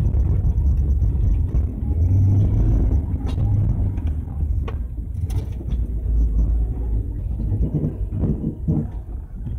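Mercedes-Benz Vito W639 115 CDI diesel van driving on a rutted sandy dirt track, heard from inside the cab: a steady low rumble of engine and tyres, with a few sharp knocks in the middle.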